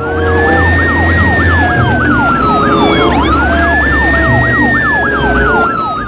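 Emergency-vehicle siren: a long wail that rises quickly and falls slowly, starting again about halfway through, layered over a faster repeating yelp. Music plays underneath.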